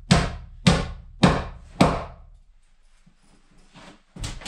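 Hammer driving 4-inch spikes through heavy wooden floor planks into the joists: four sharp blows about two a second, stopping about two seconds in, then one more knock near the end.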